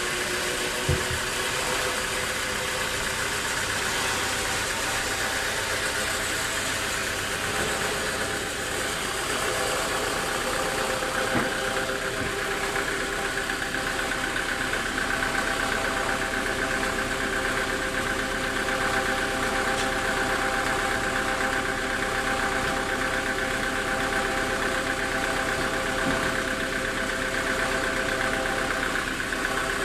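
Sawmill machinery running steadily with a motor hum. A higher-pitched band comes in about ten seconds in, with a few sharp knocks.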